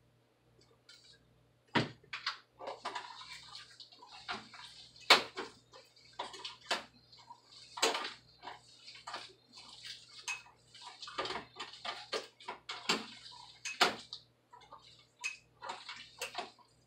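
Bare hands squeezing and kneading a wet raw ground-meat meatloaf mixture in a bowl: irregular wet squelches and smacks, starting with a sharp knock about two seconds in.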